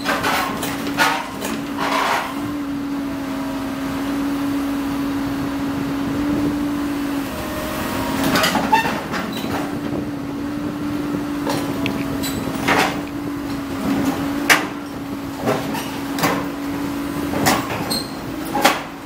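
Komatsu PC130 crawler excavator's engine running steadily as the machine climbs onto a steel truck trailer. Irregular sharp metal clanks come from its steel tracks and bucket on the steel ramps and deck, several in quick succession near the start and more in the second half.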